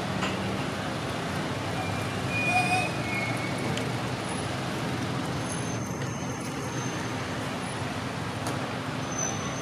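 Steady outdoor background noise, a low hum and hiss like distant traffic, with a couple of faint short high chirps about two and a half seconds in.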